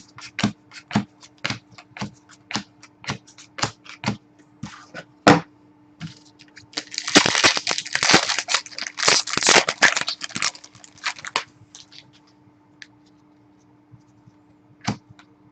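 Hockey trading cards being flipped one by one from a freshly opened pack, giving a quick run of sharp card clicks, about three or four a second. About seven seconds in, this gives way to a few seconds of dense paper rustling and scraping.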